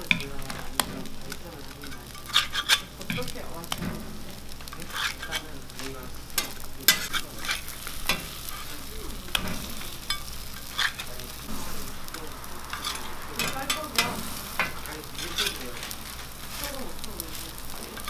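Handmade burger patties sizzling on a flat-top griddle as a steel burger press and spatula smash them flat, with frequent clinks and scrapes of metal against the griddle.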